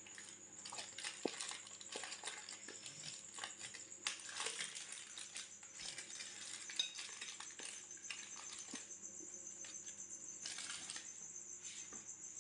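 Aluminium foil crinkling and rustling as it is peeled open and pulled off a cooked sausage roll, with irregular small crackles.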